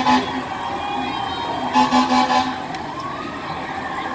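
Fire apparatus horn sounding in two quick clusters of short blasts, one at the start and one about two seconds in, followed by a siren swelling upward in pitch about three seconds in.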